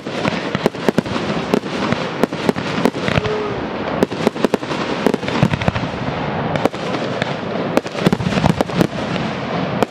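Fireworks display: aerial shells bursting in rapid succession, several sharp bangs a second over a continuous crackle.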